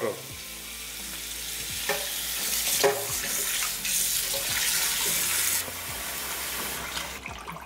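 Cold tap water running into a stainless steel bowl of raw chicken drumsticks as a hand rubs and rinses them. The rush of water gets quieter about five and a half seconds in.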